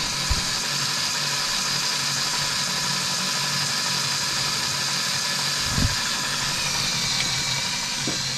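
Small battery-powered Lego Technic electric motor whirring steadily through its plastic gear train as it turns the model tractor's cab round, with a light knock about six seconds in.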